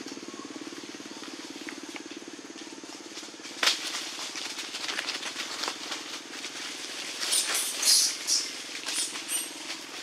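A steady low motor hum, with a sharp crack about four seconds in and scattered rustles and clicks after it, then a cluster of loud high squeaks or rustles near eight seconds and a few short high chirps near the end.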